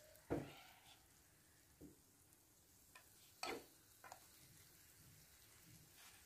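Grated potato, zucchini and egg mixture frying quietly in oil in a nonstick pan. A fork clinks and scrapes against the pan a few times, sharpest about a third of a second in and again about three and a half seconds in.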